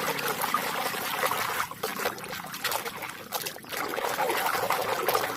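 Water trickling and splashing as a muddy toy is rinsed and scrubbed by hand, with a few small knocks.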